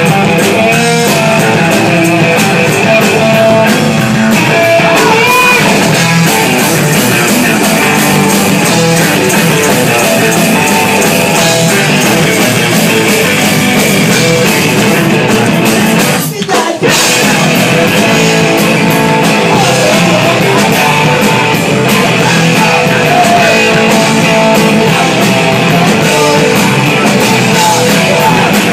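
Live rock band playing loud: electric guitar and drum kit with a singer. The sound drops out briefly about halfway through, then the band comes straight back in.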